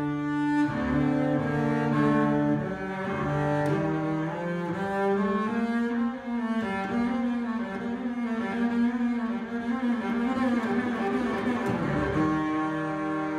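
Solo double bass played with the bow: a slow passage of long held notes that step from pitch to pitch, with a busier stretch dipping into the low register near the end.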